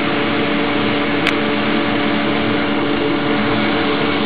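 1325 wood CNC router and its dust collector running steadily, a constant machine hum with a few steady tones over an even rushing noise. A single sharp click sounds just over a second in.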